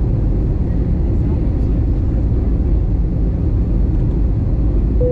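Airliner cabin noise on the landing approach: a steady low rumble of engines and rushing air. A single steady tone starts near the end.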